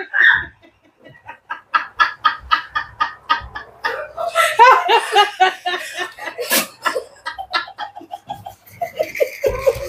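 Women laughing hard in rapid repeated bursts, growing louder and fuller about four seconds in.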